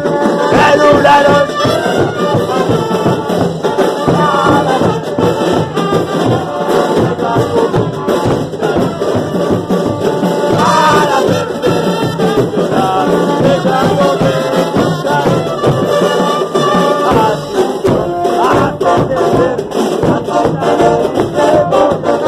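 Brass band playing a tune in unison, with drums beating steadily underneath.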